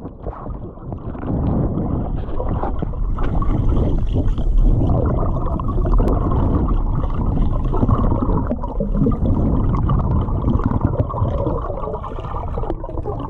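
Muffled underwater water noise: a dense, churning gurgle and rumble with the higher sounds cut away. It fades in over the first second and a half.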